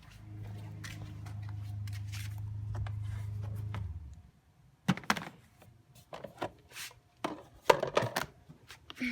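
Vacuum cleaner motor running with a steady low hum, cutting off about four seconds in, followed by a run of knocks and clatters.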